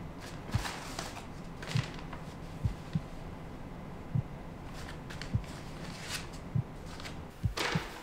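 Paper envelopes and letters rustling as a stack is handled and leafed through by hand, in short crisp bursts. Beneath them, low soft thumps recur about once a second.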